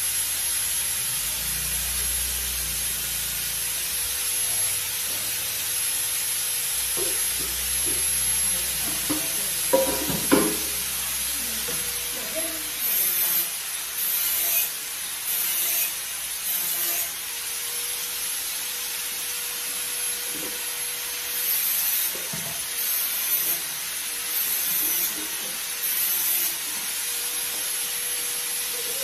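Dishes being washed by hand at a kitchen sink: a steady hiss of running water, a couple of sharp clinks of dishes about ten seconds in, then short scrubbing strokes in two runs of about four.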